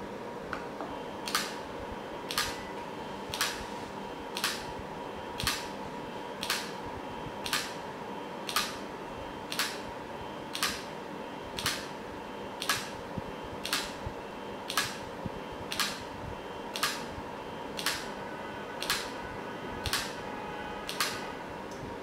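A NEMA17 stepper motor swinging a plastic arm onto a lever microswitch, giving twenty sharp clicks, about one a second, as the switch is actuated over and over in an endurance test. A steady faint whine runs underneath.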